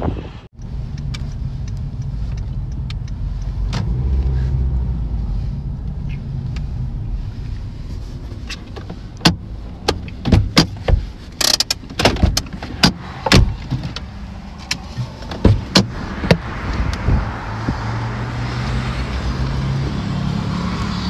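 Steady low hum of a motor vehicle's engine. Through the middle come a string of sharp knocks and pops, and wind noise builds near the end.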